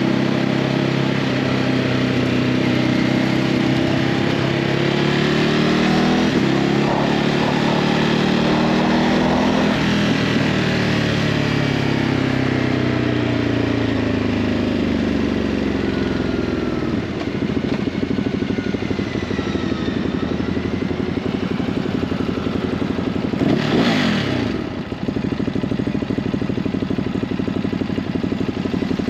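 Ducati Hypermotard 950's 937 cc V-twin on its stock exhaust, ridden on the road: the revs climb and drop through several gear changes in the first ten seconds, then the engine runs at a steadier pace. A short rush of noise comes late on.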